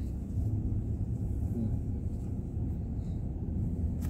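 Car cabin noise while driving: a steady low rumble of the engine and tyres on the road.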